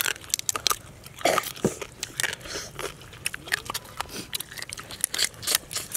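Cooked crab shells cracking and crunching as they are bitten, chewed and broken apart, a rapid, irregular run of sharp cracks.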